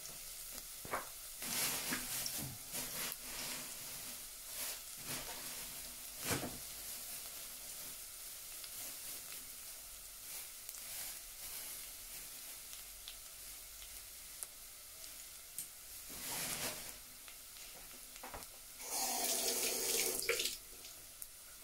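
Sliced garlic sizzling in hot olive oil in a clay pot over a strong flame: a steady hiss with scattered crackles, and a few louder bursts of noise, the longest near the end.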